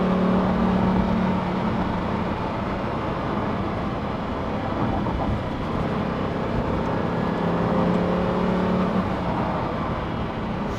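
Lamborghini Huracán STO's V10 engine running at a steady cruise over road and tyre noise, its drone holding one pitch and swelling gently between about six and nine seconds in.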